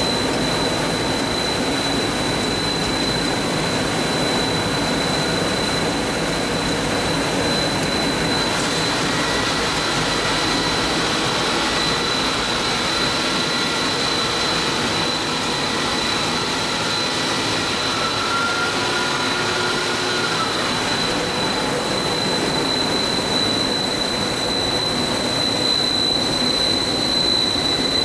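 Coil car mat production machinery running: a steady mechanical din with a constant high-pitched whine.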